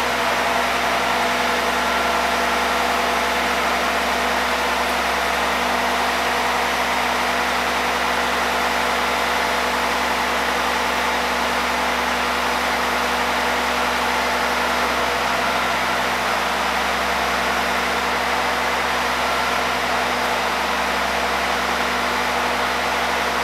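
RGH20C rail grinding car's machinery running steadily while the car stands still: an even, unbroken drone with a few constant pitched hums in it.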